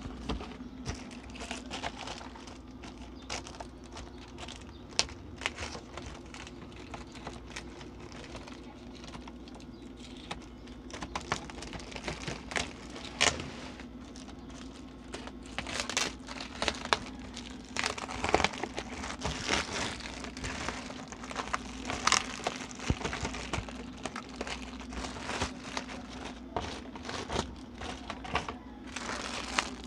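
Clear plastic wrapping crinkling and rustling as it is handled and pulled open around a stack of plastic containers, in irregular crackles that grow busier about halfway through.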